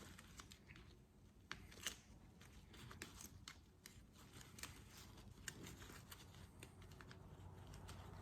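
Faint scattered clicks and rustling as an old shift boot and the plastic console trim it attaches to are handled and worked free by hand.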